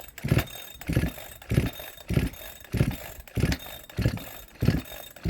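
Chinese MS360-clone chainsaw's two-stroke engine cranked over and over on the pull-cord starter, about eight quick pulls under a second apart, each a rasp of rope and compression, without firing. The owner blames a lack of spark.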